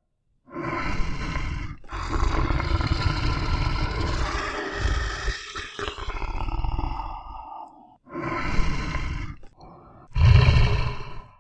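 Bear growling and roaring: a short growl, then a long drawn-out growl of about six seconds, then shorter growls near the end, the last one the loudest.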